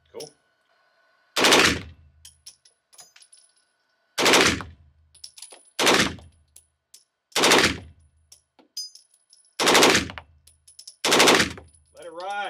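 An H&K MP5 submachine gun fired on full auto in six short bursts a second or two apart, each burst ringing out after it stops.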